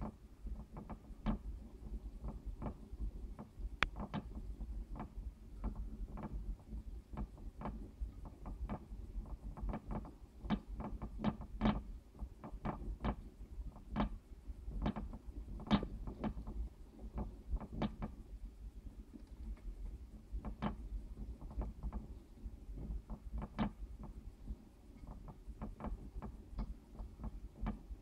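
Harvest mice scrambling around their enclosure and its plastic exercise wheel: a faint, irregular run of light clicks and taps, busiest in the middle.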